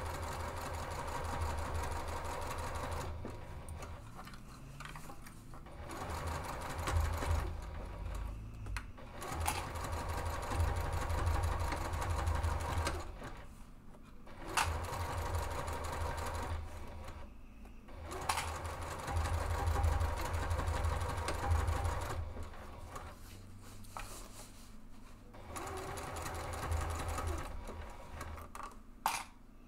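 Juki sewing machine stitching slowly through layers of fabric in short runs, stopping and starting again every few seconds as the seam is guided around the piece.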